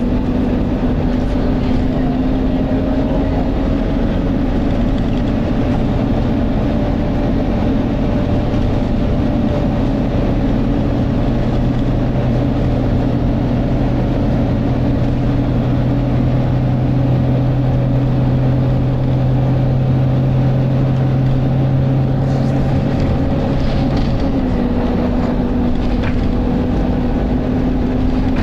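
Volvo B9TL bus's 9.4-litre six-cylinder diesel engine running hard under way, heard from inside the passenger saloon, with the engine cooling fan running. The sound is loud and steady with a low drone; one low steady hum cuts off suddenly about three-quarters of the way through.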